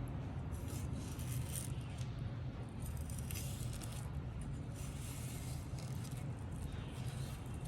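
Light scraping and rubbing with a few faint clinks, over a steady low hum.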